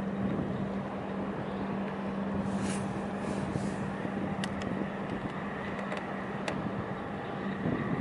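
A steady low engine hum over a wash of noise, with a couple of brief sharp clicks.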